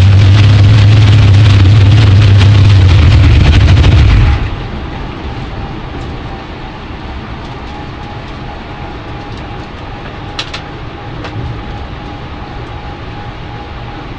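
Super Gas drag car's engine heard from inside the cockpit, running very loud and steady, then dropping away sharply about four seconds in. What remains is a much quieter steady rumble with a thin, steady whine.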